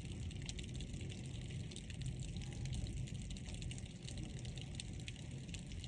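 Thunderstorm rain pouring steadily, with many scattered sharp ticks of drops striking a hard surface close by and a low rumble underneath.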